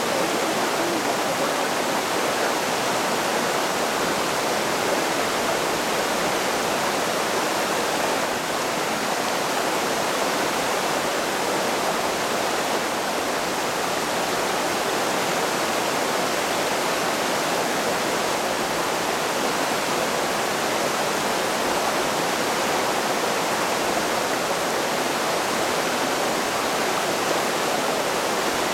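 Mountain creek rushing over boulders in shallow rapids: a steady, even rush of water.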